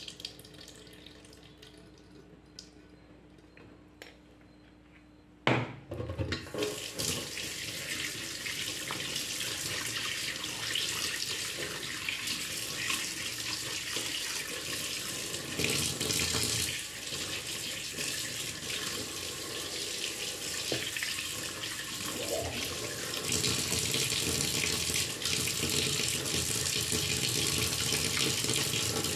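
Faint trickle of water being drained from a bowl into a stainless steel sink. About five and a half seconds in there is a knock, and then a kitchen tap runs steadily into the sink while pieces of fish are rubbed and rinsed by hand under the stream.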